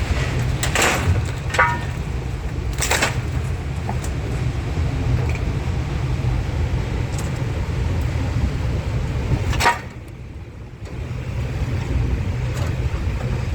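Vehicle engine running with a steady low rumble, with a few sharp knocks and rattles: around one second in, about three seconds in, and near ten seconds, where the rumble briefly drops off before picking up again.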